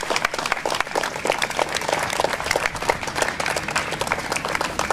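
A crowd applauding, many hands clapping together in a dense, steady patter.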